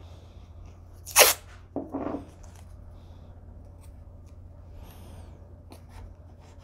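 Masking tape pulled off its roll in one short, loud rip about a second in, followed by a duller, lower noise of the tape being handled. A few faint ticks follow over a steady low hum.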